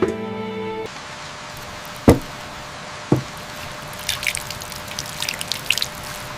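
Steady rain hiss with trickling and dripping water. There are two sharp knocks about two and three seconds in and a scatter of small high drips or clicks in the second half. Held music notes cut off just under a second in.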